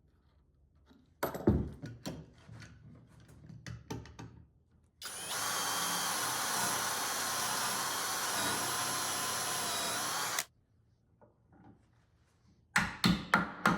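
A few knocks and clunks of parts being handled, then a power drill runs steadily for about five seconds, driving screws to fit adjustable feet and flip casters to a 2x4 frame. It stops suddenly, and a quick cluster of sharp clicks follows near the end.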